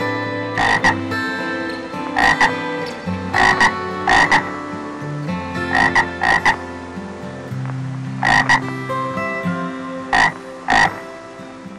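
Short animal calls repeated about ten times, several in close pairs, over background music with sustained notes and a plucked-string melody.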